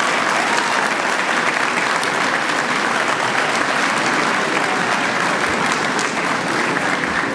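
An audience of students and parents applauding steadily and heartily, a dense unbroken clapping.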